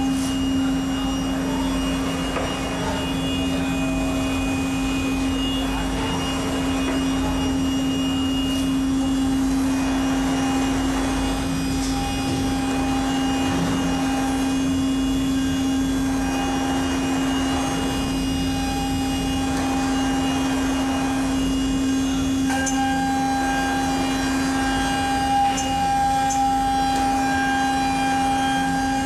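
Thermwood CNC router spindle running at a steady pitch while its bit cuts a wooden post held on the rotary axis. The cutting noise rises and falls every few seconds as the tool works.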